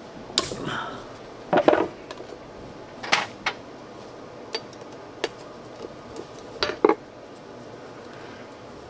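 Steel parts and hand tools knocking and clinking against each other, about half a dozen separate sharp clanks, the loudest a couple of seconds in and again about three-quarters through.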